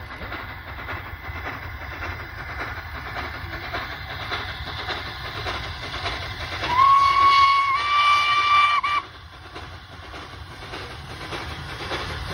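Steam locomotive whistle blown once: a single held tone of a little over two seconds that steps up slightly in pitch partway through, then cuts off sharply. Under it runs the steady noise of the approaching steam train.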